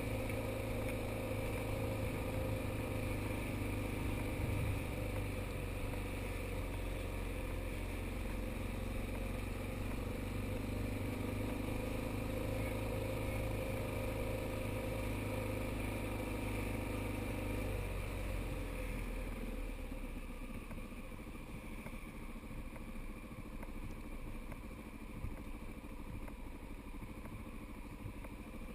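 Motorcycle engine running steadily while riding at low speed. About eighteen seconds in, the engine note falls and gets quieter.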